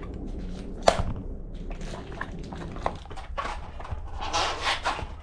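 Mountain-bike tire being worked onto its rim by hand: rubber rubbing and scraping against the rim, with scattered clicks and a sharp knock about a second in.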